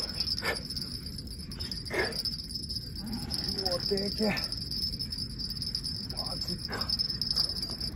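Insects chirring steadily on one unbroken high note, with a few short scrapes scattered through.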